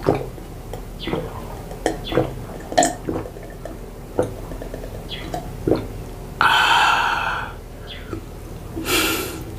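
A person gulps water from a glass, swallowing about once or twice a second for some six seconds, then lets out one loud burp lasting about a second. A shorter breathy sound follows near the end.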